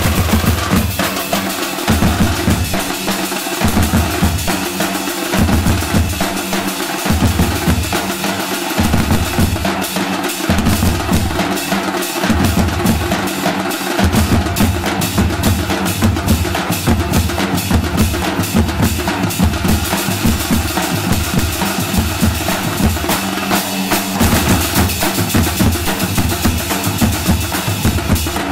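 A troupe of Nasik dhol drums played together in a fast, loud, continuous rhythm, with rapid sharp strokes over a repeating pattern of deep bass strokes that becomes steadier about halfway through.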